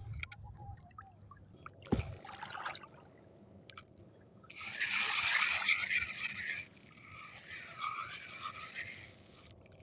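Fishing reel being cranked to bring in a hooked fish on a bent rod, its gears whirring loudest for about two seconds midway, then more faintly toward the end. A single click about two seconds in.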